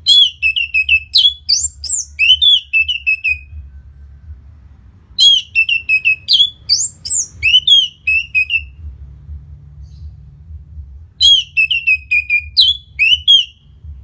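Orange-headed thrush singing three phrases, each a quick run of clear whistled notes and slurred, falling notes ending in a short trill, with a pause of about two seconds between phrases. A faint low hum runs underneath.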